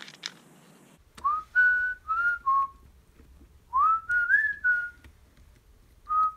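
A person whistling a short tune in two phrases of a few notes each, some notes sliding up, with a few faint clicks of small parts being handled.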